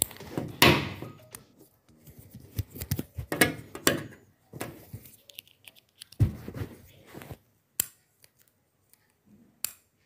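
Perforated metal construction-kit strips and a small electric motor being handled and fitted onto a model truck chassis: irregular clicks, clinks and light knocks, with a few sharp single clicks near the end.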